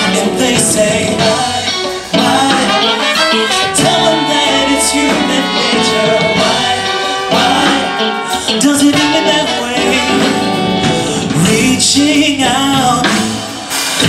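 A live pop-soul band of keyboards, bass, guitar, drums, trumpet, trombone and saxophone playing a mid-tempo groove, with a lead singer's voice over it at times.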